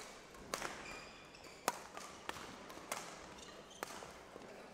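Badminton rally: rackets striking a shuttlecock, a series of sharp cracking hits about once a second, with a few faint high squeaks.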